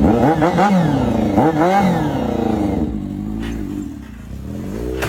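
An engine revving: two quick rises and falls in pitch in the first two seconds, then running lower and steadier.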